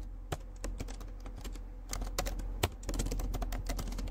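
Typing on a computer keyboard: irregular keystroke clicks, getting denser and quicker about halfway through.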